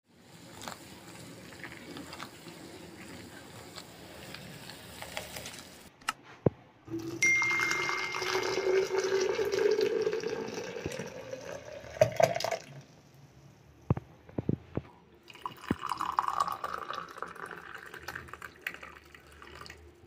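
Hot kahwa poured in a steady stream into a glass jug, the pitch rising as the jug fills. Before it, a soft hiss from the pot on the boil; after it, a few sharp clinks and a second, higher-pitched pour.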